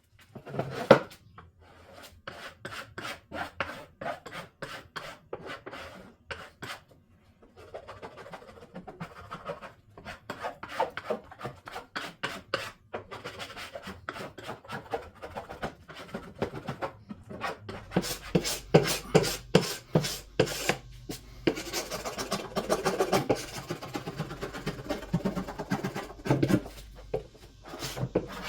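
Hand rubbing strokes on wood, like sanding or scraping a cabinet surface, going back and forth about two to three times a second. There is a brief pause, and the strokes get louder and busier in the last third.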